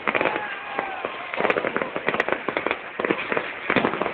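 Fireworks going off: rapid crackling and popping from ground fountains and aerial bursts, in dense volleys of sharp cracks with short lulls between them.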